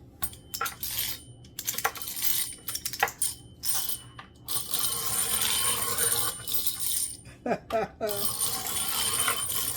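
Tin clockwork wind-up toy tricycle running, the small bell on its back ringing again and again in stretches of ringing broken by short gaps, with metallic clicking and rattling from the moving toy.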